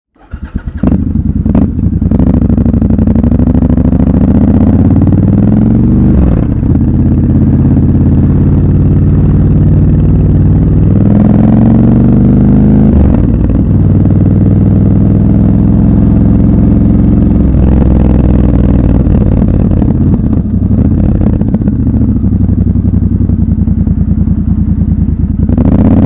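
Triumph Scrambler 1200 XC's 1200 cc parallel-twin engine under way, its pitch climbing as the bike accelerates and dropping back sharply at gear changes about six and thirteen seconds in, with steadier cruising between.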